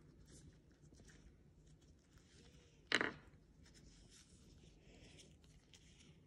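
Faint rustling of disposable plastic gloves handling a small squeeze bottle of food colouring, with one brief louder noise about three seconds in.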